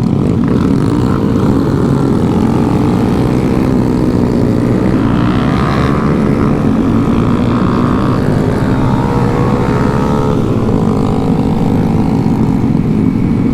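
Engines of a group of small motorcycles and scooters, Honda Groms and Ruckuses, running while riding: a steady drone whose pitch drifts slowly up and down with the throttle.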